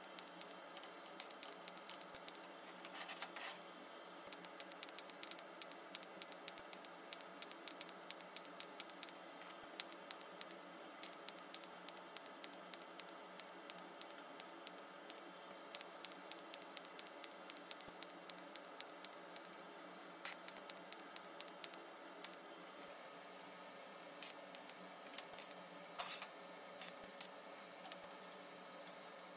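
TIG welding on thin steel sheet: a faint steady hum with frequent small, irregular crackles and clicks, and one sharper click near the end.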